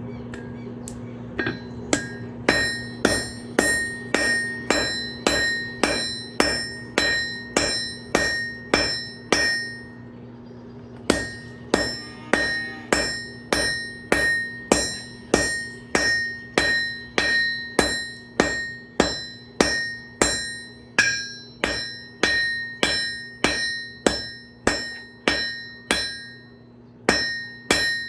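Blacksmith's hammer striking a railroad spike being forged on an anvil, about two blows a second, each blow ringing with a clear high metallic tone. The hammering stops briefly about ten seconds in and again just before the end. A steady low hum runs underneath.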